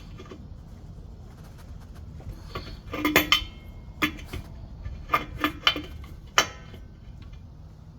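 Wrench clinking against a metal air-line fitting on a truck air tank as it is tightened a little at a time: a cluster of sharp clicks about three seconds in, then single clinks spread over the next few seconds.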